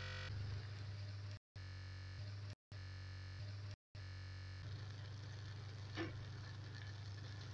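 Faint steady low hum with a thin hiss above it, broken by four brief cuts to dead silence in the first half, and a single faint click about six seconds in.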